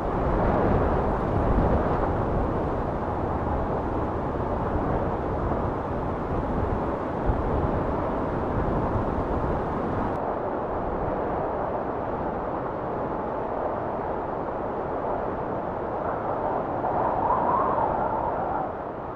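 Steady rushing wind noise with no pitched tone in it; its highest hiss drops away about halfway through, and it fades near the end.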